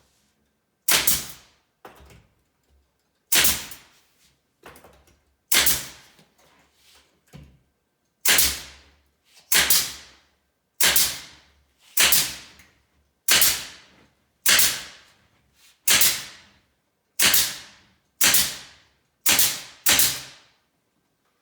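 A fastening gun firing about fourteen times, each a sharp crack with a short fading tail, driving staples or pins through a cabinet face frame into its side. Spaced unevenly at first, then regular at about one shot every 1.2 s, with a few faint knocks of the tool being placed in between.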